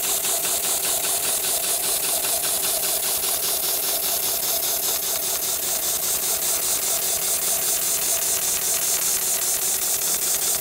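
A heavy-duty automated shoe-sole stitching machine, the HighTex 7273CNC-S2S, running and sewing with a fast, even mechanical clatter of needle strokes.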